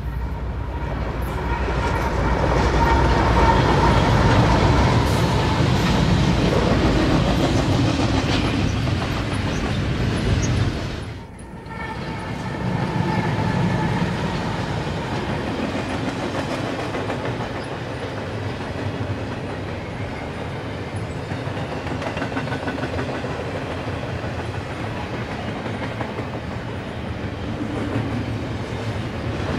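BNSF double-stack container freight train passing, with GE diesel locomotives (an ES44C4 and a C44-9W) going by and steel wheels clacking over the rail joints. The sound drops out briefly about eleven seconds in, then the steady rumble of the cars rolling past resumes.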